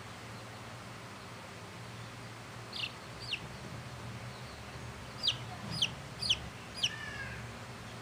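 Young chick peeping: short, high, falling peeps, two around three seconds in, then four more about half a second apart from about five seconds in.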